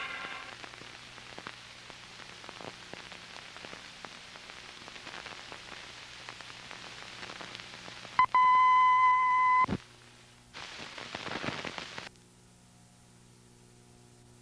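Hiss and scattered crackle of an old film soundtrack, then a loud, steady high-pitched beep lasting about a second and a half, a brief burst of hiss, and a low steady hum to close.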